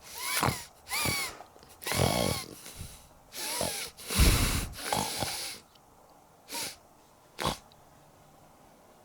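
Exaggerated comic snoring: a run of loud snorting, wheezy breaths, some with a high wavering squeak in them. After about five and a half seconds it eases off to two short snorts.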